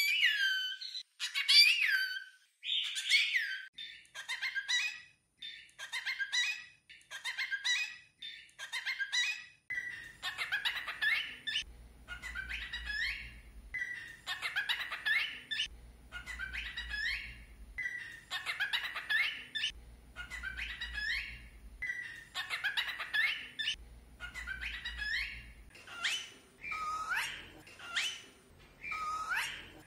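Cockatiel chattering and whistling in short, chirpy phrases, roughly one a second.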